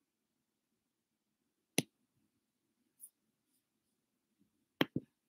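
A few isolated sharp clicks with quiet between: one about two seconds in, a faint tick about three seconds in, and a quick pair near the end.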